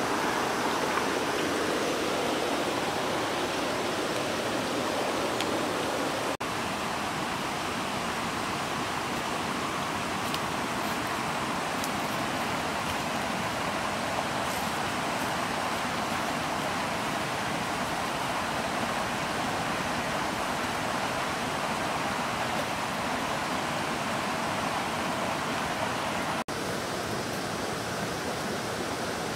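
Steady rushing of a flowing river, an even wash of water noise with no rhythm, broken by two abrupt cuts.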